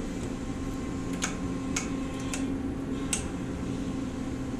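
A few faint, sharp clicks at irregular moments, about five in all, from gloved hands working epoxy-wet fiberglass strands, over a steady low background hum.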